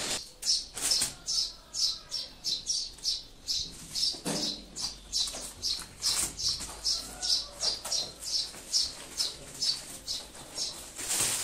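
Rhythmic hand-tool scraping or rubbing strokes on fireplace masonry, about three strokes a second, each a short high hiss. A brief duller sound comes a little after four seconds in, and a louder scrape near the end.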